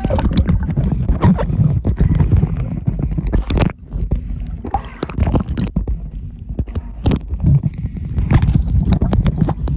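Riding in a boat: a low rumble and wind on the microphone, with irregular knocks and splashes of water throughout.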